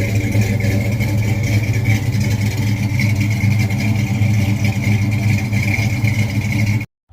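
An engine running steadily at a fairly high, even speed. It cuts off abruptly near the end.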